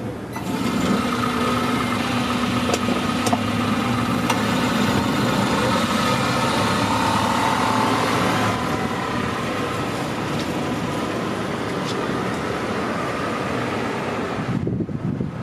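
First-generation Honda Insight's small three-cylinder engine running as the car is driven; the sound is a little louder for the first half and eases off slightly after that.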